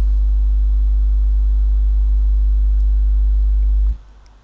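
A loud, steady low-pitched hum with a few fainter higher tones above it, unchanging throughout, that cuts off abruptly near the end.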